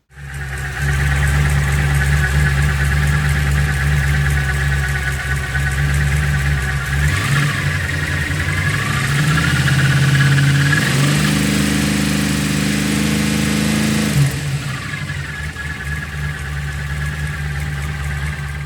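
406 small-block Chevy V8 running at idle, its engine speed raised to a higher steady pitch for about three seconds in the middle before it drops back to idle. Its idle mixture is being leaned out with the carburetor's idle mixture screws.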